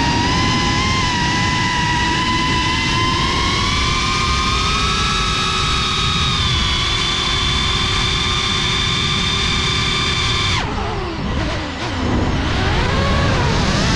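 GEPRC FPV quadcopter's electric motors whining steadily, the pitch creeping upward. About ten and a half seconds in, the throttle is cut and the whine drops away sharply, then swoops down and back up as the throttle is worked again.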